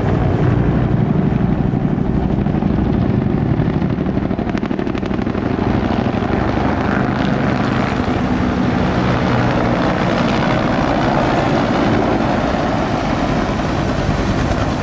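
Bell AH-1 Cobra and UH-1 Huey helicopters flying low past, their two-bladed rotors and turbine engines running loud and steady.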